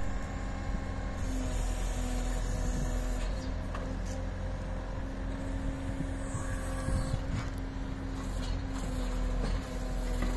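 Case compact track loader's diesel engine running steadily while it drives the hydraulics of a backhoe attachment as the boom and bucket move.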